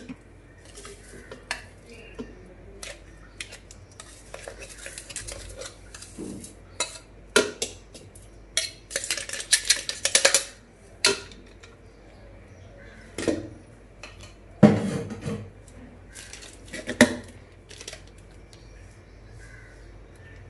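Stainless steel mixer-grinder jar clinking and scraping against a steel bowl as ground biscuit powder is tapped out of it: irregular metal clinks and knocks, a run of scraping around the middle, and a few louder knocks later on.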